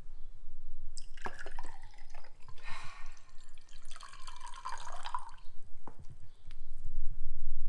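L&P, a carbonated lemon soft drink, poured from a plastic bottle into a glass, splashing from about a second in to about five and a half seconds, with a couple of light clicks.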